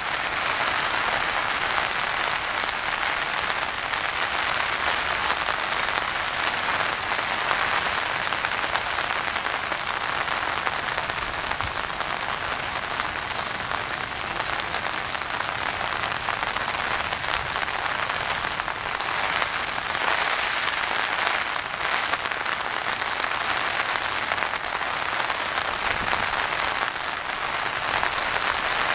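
Steady rain falling on a pond's surface and the surrounding wet ground, an even hiss with no break.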